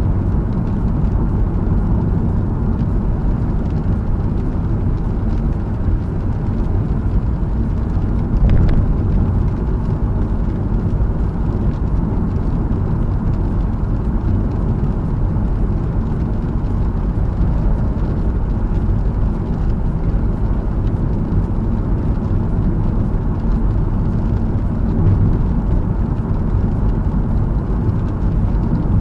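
Honda Fit driving at speed on a wet expressway, heard from inside the cabin: a steady low rumble of tyres on the wet road and the running engine. One brief knock comes about eight seconds in.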